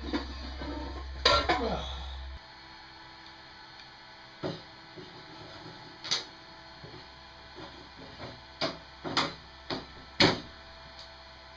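Scattered knocks and clunks of workshop handling, the loudest about a second in and several more spread through the rest. A low hum underneath cuts off suddenly after about two seconds.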